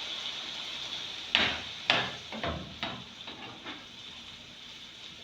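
Cooking utensils knocking against a pot of simmering chicken pie filling: two sharp knocks about a second and a half in, then a run of lighter taps that fade, over a faint hiss from the pot that dies away early on.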